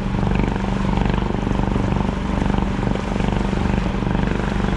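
A sailing yacht's engine running steadily, a constant drone under the hiss of wind and water.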